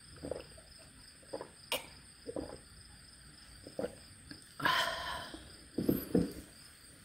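Someone chewing a mouthful of crunchy cucumber bibimbap: short soft crunches every second or so, with a louder hissing rustle about five seconds in.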